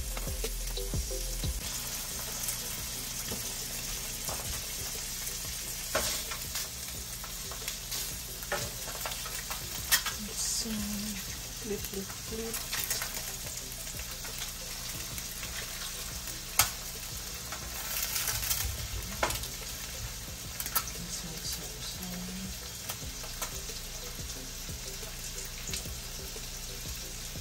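Food frying in a pan, a steady sizzle, with an occasional sharp click of a utensil against the pan.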